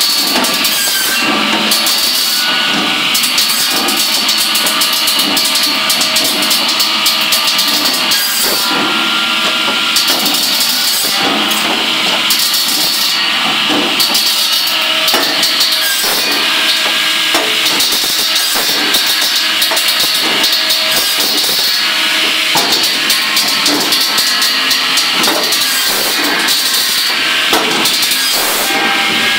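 GROWI firewood saw running and cutting logs with its circular blade, a steady machine noise with frequent irregular knocks as cut wood pieces clatter down the chute onto the conveyor belt.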